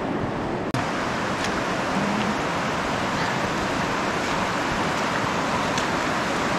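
Steady rush of the shallow Virgin River flowing over rocks, cutting out for an instant just under a second in.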